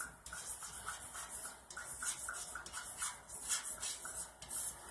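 Chalk writing on a chalkboard: a quick run of short scratching strokes and taps as a word is written.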